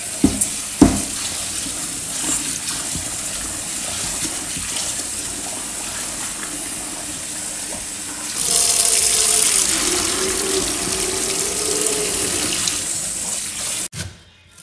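Kitchen tap running into a stainless steel bowl as rice is rinsed under it, with two sharp knocks in the first second. The water runs louder for several seconds from a little past halfway.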